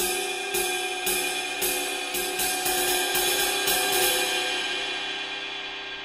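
A Masterwork cymbal struck on its bow with the tip of a wooden drumstick, about ten even strokes that come slightly closer together. After about four seconds the strokes stop and the cymbal rings on, slowly fading.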